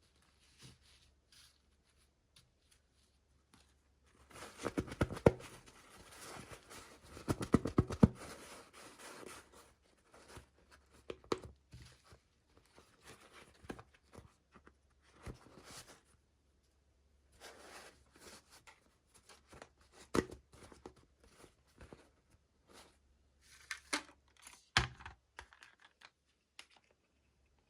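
Packaging being torn open and crinkled by hand, densest and loudest for several seconds near the start, then scattered rustles and small clicks, with one sharper knock near the end.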